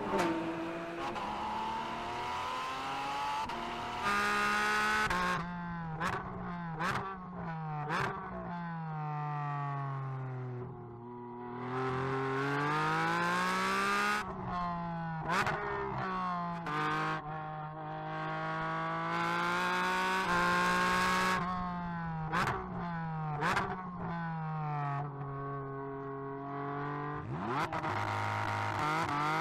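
Porsche 718 Cayman GT4 RS Clubsport's 4.0-litre flat-six race engine driven hard on track. Its pitch climbs through the gears and breaks sharply at each shift, then falls away on the downshifts, over and over.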